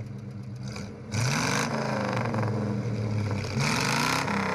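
A car engine accelerating twice: its note rises in pitch about a second in and again near the end, each time with a short surge of rushing noise.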